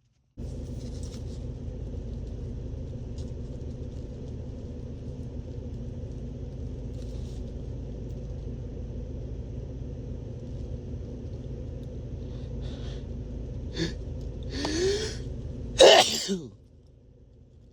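A man's loud sneeze near the end, just after a rising 'ah' intake of breath. Before it there is a long, steady low rumble, which cuts off at the sneeze.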